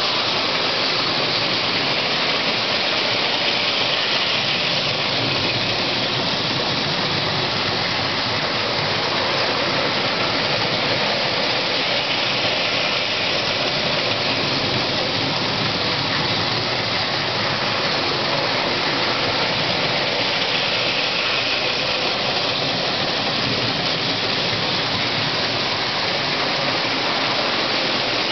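Postwar Lionel 675 toy steam locomotives running on O27 tinplate track: a steady noise of metal wheels rolling on the tin rails and the electric motors running, with no whistle.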